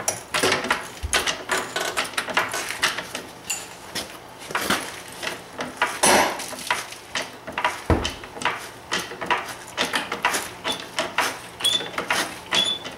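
Car jack and steel jack stand at work lifting the car: rapid, irregular metallic clicking and clatter, with a dull thump about a second in and another near eight seconds.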